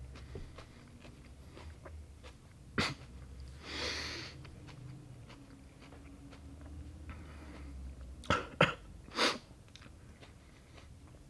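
A man hiccuping and gasping from the heat of hot chilli: one sharp hiccup about three seconds in, a long breath blown out just after, then three more sharp hiccups close together near the end.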